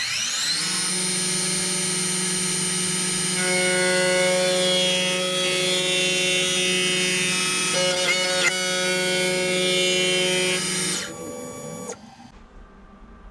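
Milling machine spindle spinning up with a rising whine, then an end mill cutting into an aluminium block: a loud, steady whine of several tones, with a few rougher moments partway through. The spindle runs down and goes quiet about 11 to 12 seconds in.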